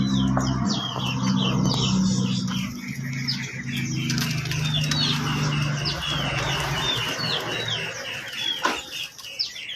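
Many small caged birds chirping together, a dense run of short, quickly repeated high notes. A low steady hum runs underneath and fades out about seven seconds in.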